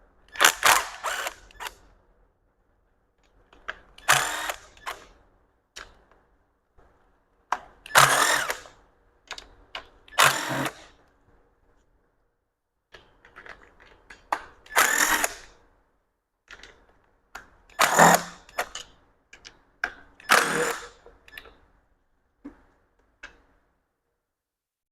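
Cordless power tool run in about seven short bursts a few seconds apart, spinning out the valve cover bolts on a Mazda B2200 engine, with small metal clicks between the bursts as bolts come free.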